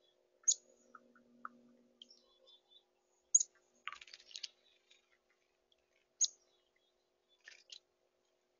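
A chickadee bathing in a shallow birdbath, splashing in two brief flurries, with three sharp, high chirps spaced about three seconds apart.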